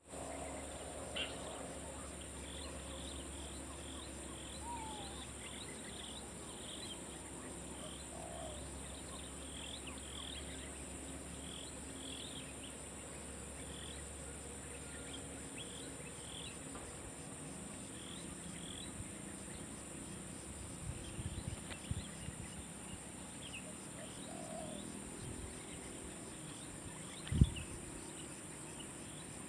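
Outdoor insect chorus: a steady high-pitched drone with many short, repeated chirps over it. Several low thumps come in the last third, the loudest a single sharp knock near the end.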